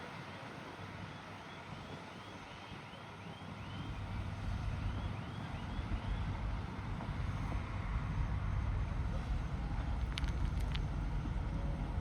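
Bulldozer's diesel engine running with a steady low rumble that comes in and grows louder about four seconds in, with a few sharp clicks near the end.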